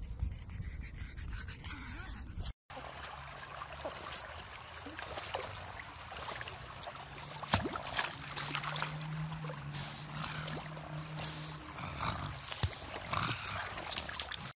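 Pugs swimming in a pool: water splashing and lapping, with many small sharp splashes, over a low steady hum that is strongest from about 8 to 11 seconds in. This follows a couple of seconds of low rumble, like wind on the microphone.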